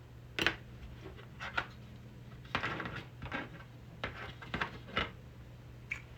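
Handling noise on a workbench: a string of light clicks and knocks at irregular intervals, as small plastic parts and tools are picked up and set down, over a low steady hum.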